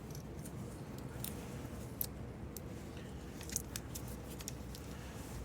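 Electrical tape crackling as it is pulled off the roll and wrapped around a temperature sensor's wire: scattered short clicks and crackles over a steady low hum.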